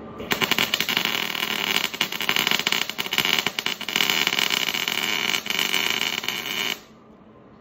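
Electric welding arc crackling through one continuous weld of about six seconds, starting just after the beginning and cutting off suddenly near the end.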